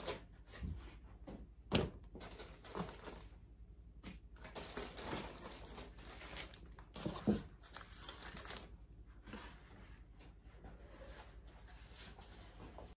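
Plastic bags crinkling and rustling as a cardboard model kit box is unpacked, with a few soft knocks, the sharpest about two seconds in and another about seven seconds in.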